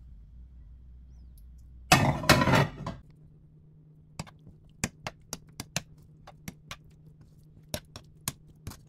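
Metal kitchen tongs clicking and tapping against a non-stick frying pan while onions, mushrooms and smoked duck slices are tossed together, a sharp click every second or so. About two seconds in there is one louder clatter lasting about a second.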